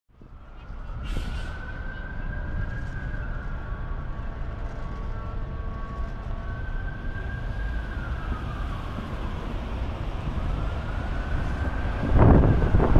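A siren wails in slow rising and falling sweeps over a steady city traffic rumble, fading in at the start. Near the end a bus draws close and its engine and road noise swell louder.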